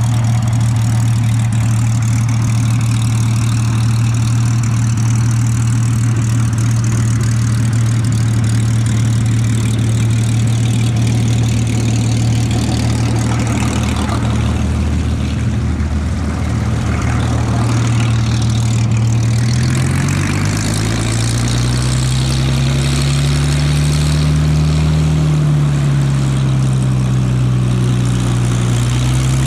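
Rolls-Royce Merlin III V12 of a Hawker Hurricane Mk.I running at low taxiing power, a steady rumble from the engine and propeller. About twenty seconds in, its pitch starts to rise and fall a few times.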